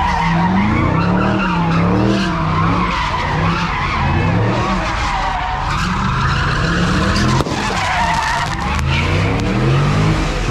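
A car doing donuts: its engine revs up and down over and over while the tyres squeal without a break.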